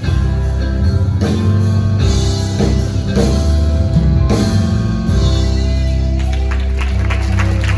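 Band playing the instrumental close of a worship song, with guitar, bass and drums and no singing.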